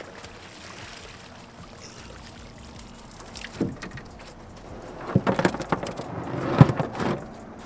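Cast net being hauled back up over the side of a small boat: a single knock about three and a half seconds in, then a run of knocks and rattling as the weighted net comes aboard against the hull, loudest near the end.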